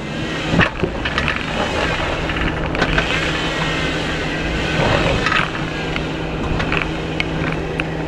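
Jeep Wrangler JK's engine running steadily, a constant low hum, with occasional sharp clicks over it.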